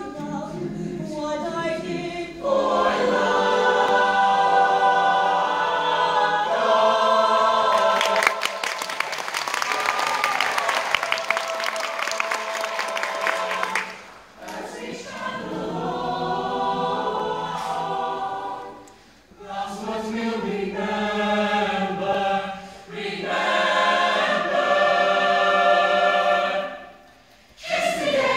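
A mixed-voice show choir singing a ballad together in phrases, with short breaks between them. About eight seconds in, audience clapping and cheering swells over the singing for several seconds.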